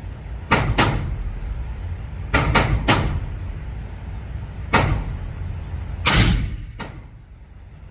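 About seven gunshots fired at irregular intervals at an indoor shooting range, the loudest about six seconds in.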